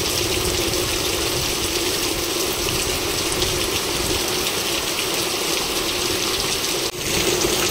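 Heavy rain pouring down onto corrugated sheet roofs: a steady, dense rush that dips for an instant near the end.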